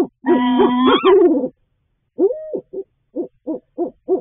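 Barred owl calling: a long, wavering call that rises in pitch at its end, then an arched hoot and a quick run of short hoots, about three a second.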